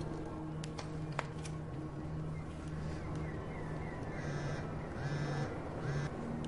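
Mobile phone ringing in short buzzing pulses that repeat, with a couple of light clicks about a second in.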